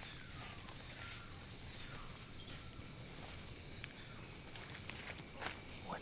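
A steady, high-pitched chorus of night insects in tropical rainforest, unbroken throughout, with a few faint ticks.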